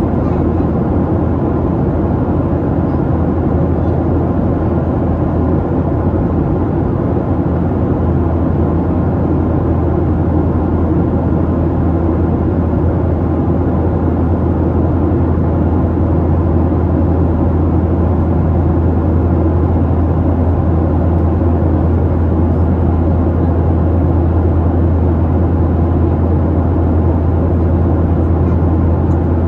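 Steady cabin noise of a Boeing 737-700 in cruise, heard from inside the cabin: a constant low rumble of airflow and its CFM56-7B turbofan engines, with no change in pitch or level.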